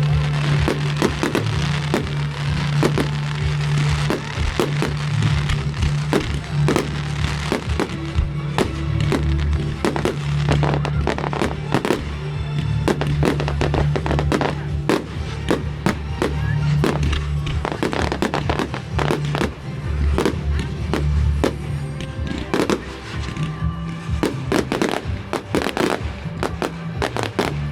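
Fireworks display: a dense run of firework bangs and crackles, several a second, over loud music with a steady bass line.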